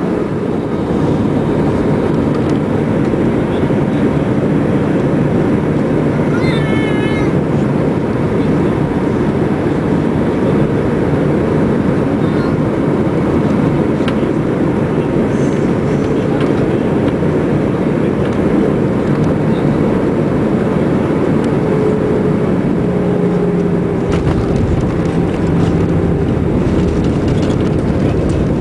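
Airbus A320 cabin noise during landing: a loud, steady rush of engine and airflow noise. About seven seconds in there is a brief wavering high-pitched sound, and later a faint steady hum rises from it.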